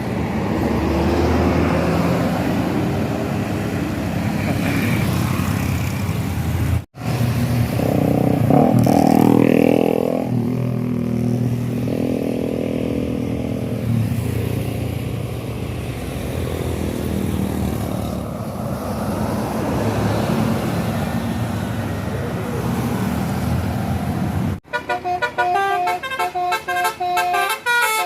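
Roadside traffic noise with vehicle engines passing. Near the end, after a cut, a bus's multi-tone 'telolet' horn plays a quick melody of short stepped notes.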